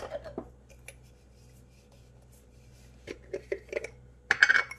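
Light taps and rustles of hands handling dry baking ingredients and a small spice jar, with a brief louder rattle near the end.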